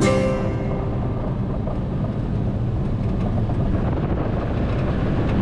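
Light aircraft's engine and propeller running steadily, heard from inside the cabin as the plane rolls along the runway. The end of a music track fades out in the first half second.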